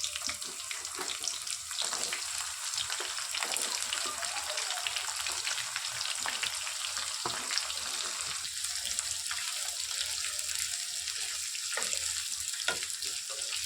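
Roughly chopped onions sizzling in hot oil in a frying pan: a steady crackling hiss with a few sharper ticks scattered through it.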